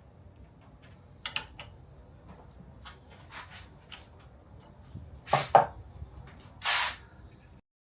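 Handling sounds of tools and parts being worked on a drill press: light scattered clicks and knocks, a sharp double knock about five and a half seconds in, the loudest sound, and a short scrape just before seven seconds.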